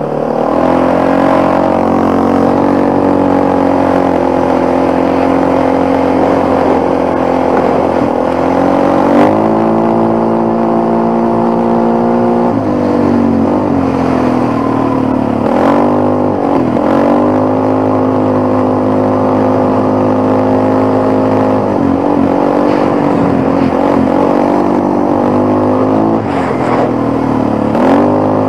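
Quad (ATV) engine running under way, its revs climbing and dropping several times as the throttle is opened and eased off.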